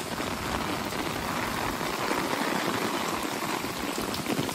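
Very heavy rain pouring down on a street and parked cars: a dense, steady hiss of rain on wet pavement.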